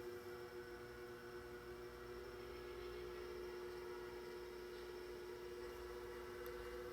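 Powered bead roller's motor running with a steady hum as a sheet-steel patch panel is fed through to tip its edge up.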